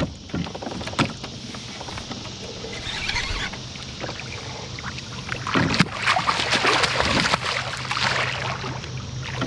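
Water splashing and sloshing around a kayak while a hooked catfish is fought on a rod, with a few knocks near the start and heavier splashing in the second half.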